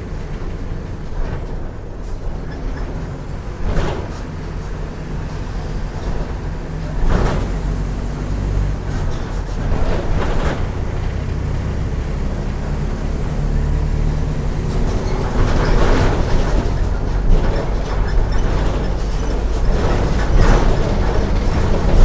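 Mercedes-Benz OF 1418 bus diesel engine running, its level building slowly. Several short rushing noises come over it.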